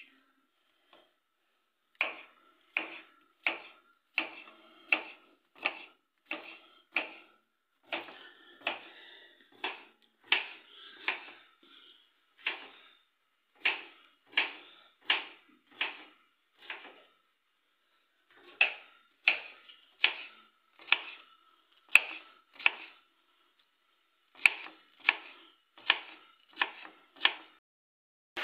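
Knife chopping on a board in steady, evenly spaced strokes, a little over one a second, in runs broken by short pauses, with a faint ringing tone beneath.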